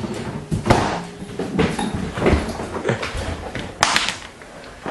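A few scattered knocks and thuds, about a second apart, with a loud double knock near the end.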